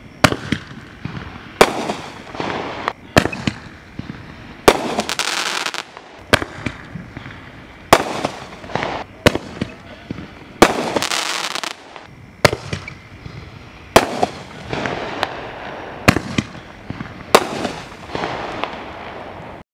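Mad Ox Festival Balls firework tube shooting flaming balls one after another: a string of sharp shots about every one to one and a half seconds, many followed by a hissing, crackling tail as the ball bursts. The sound cuts off abruptly at the end.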